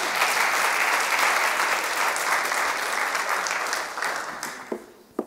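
Audience clapping, steady at first and dying away about four to five seconds in.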